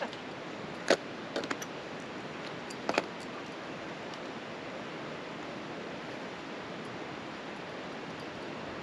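Steady rushing background noise, broken by a few sharp clicks and scrapes of metal climbing gear on rock, the loudest about one second and three seconds in.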